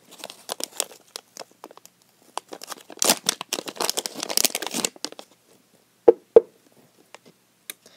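Plastic squishy packaging bag crinkling and being torn open, densest about three to five seconds in. Two short, sharp knocks come about six seconds in.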